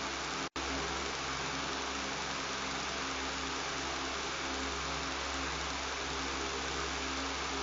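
Electric fan running with a steady buzz: an even hiss of air over a low hum. The sound drops out completely for a split second about half a second in, then resumes unchanged.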